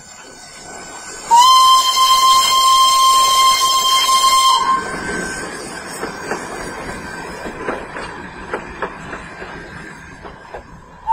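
Narrow-gauge steam locomotive blowing its steam whistle in one long, steady, high blast of about three seconds, starting a little over a second in. After the whistle, steam hisses with scattered knocks as the engine passes, and a second whistle blast begins right at the end.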